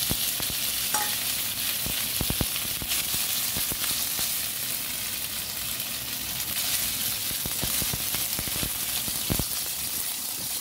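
Diced luncheon meat sizzling in hot oil in a nonstick wok: a steady frying hiss with scattered pops. A spatula starts stirring the pieces near the end.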